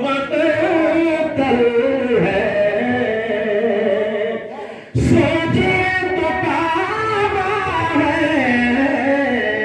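A man singing verse unaccompanied in long, held melodic phrases, with a short break about five seconds in before the next phrase.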